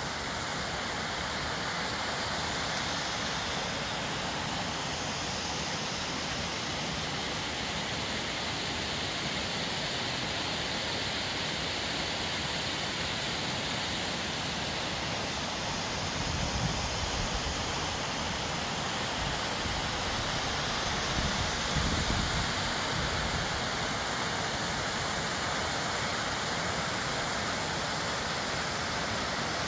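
Rain-swollen creek rushing down a rocky channel in a steady whitewater cascade, running far higher than normal after rain and snow. Two brief low rumbles rise out of the rush past the middle.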